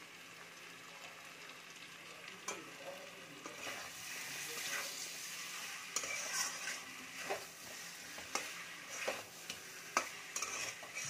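Potatoes and spice paste frying in oil in a kadai, sizzling while a metal spatula stirs and scrapes the pan, with sharp scrapes and taps against the metal from about halfway through. The sizzle grows louder after the first couple of seconds as the spices are fried down.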